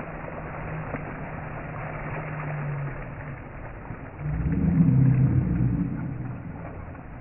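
Water splashing in a swimming pool as swimmers jump in, over a low steady hum. A louder low rumble swells about four seconds in and fades over the next two seconds.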